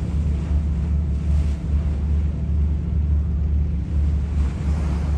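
Boat engine running steadily with a low hum, under wind gusting on the microphone and the wash of water.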